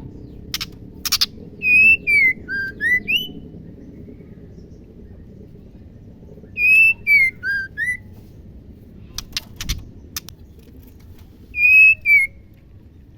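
Female white-rumped shama (murai batu) calling: a clear whistled phrase that slides down and then rises again, given three times, the last one short, with a few sharp clicks between the phrases.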